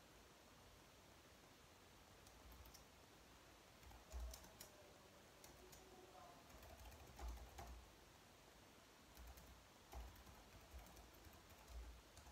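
Faint typing on a slim white low-profile keyboard: keys clicking in short bursts with brief pauses between, starting about two seconds in.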